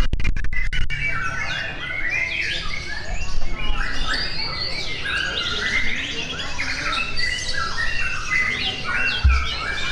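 Many caged contest songbirds singing at once: a dense chorus of overlapping whistled phrases and rapid trills. A few sharp clicks come in the first second, and a short low thump comes near the end.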